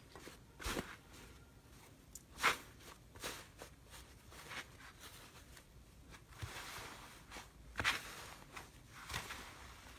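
Purple 'tofu-dregs' foam slime that has dried out for a week, crunching and crackling as hands squeeze and break up its cracked crust. Irregular crisp crunches with soft crumbling between, the loudest about two and a half seconds in.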